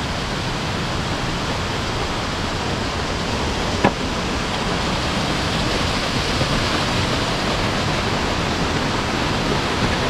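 Tad Yeuang waterfall and the rapids above it rushing steadily, an even wash of water noise. A single brief click about four seconds in.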